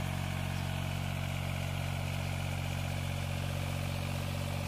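Compact articulated tractor's engine running steadily at constant speed while it works the ground with a rear-mounted rotary tiller.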